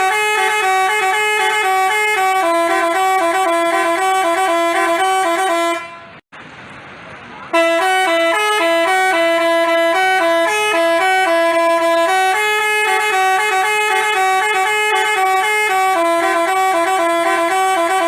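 Telolet Basuri bus horn playing a tune: a loud melody of quick stepped notes. It breaks off about six seconds in, leaving only a hiss for about a second and a half, then starts the tune again.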